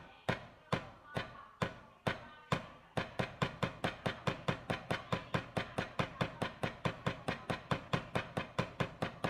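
Wooden drumsticks striking a drum practice pad in alternating single strokes, a speed-building hand exercise. About three strokes a second at first, then about three seconds in the strokes pick up to an even stream of about five a second.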